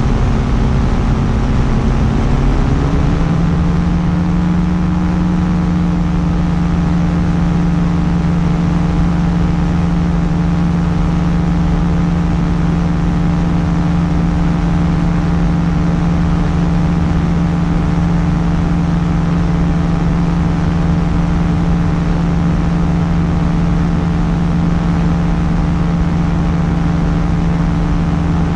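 Quicksilver Sport 2S ultralight's engine and propeller running steadily. The engine note rises a little about two to three seconds in, then holds at the higher speed.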